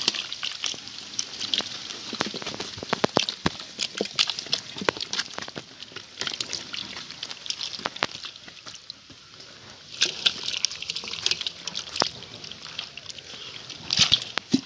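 Many live fish flapping and thrashing in shallow water in a metal basin, with quick wet slaps and splashes throughout. There are busier bursts of splashing about ten seconds in and again near the end.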